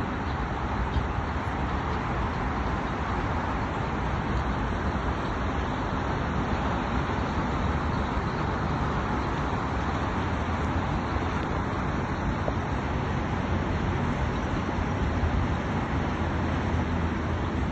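Steady road traffic noise, an even rumble with no distinct events.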